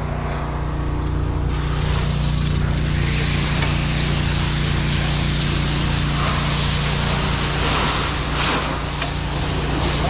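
Fire hose nozzle opening about a second and a half in, then a steady hiss of water spray into the hot, steaming engine bay of a burnt skid steer. A steady engine drone, from the fire truck's pump engine, runs underneath.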